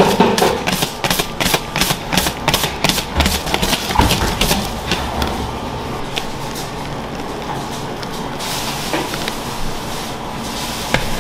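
Wire whisk beating a thick cream in a large stainless steel bowl, in rhythmic strokes about three a second that stop about five seconds in, followed by a steadier, quieter kitchen background noise.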